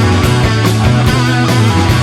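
Rock music with electric guitar, bass and drums and a steady beat.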